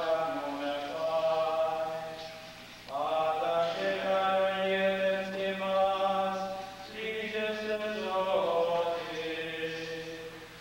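Slow church chant sung in long held phrases. New phrases begin about three seconds in and again about seven seconds in, with brief dips between them.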